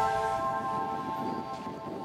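Background music of bell-like struck notes, a chord ringing out and slowly fading with no new notes struck.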